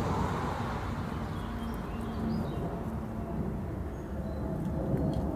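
Outdoor background: a steady low rumble of distant traffic, with a few faint short high chirps.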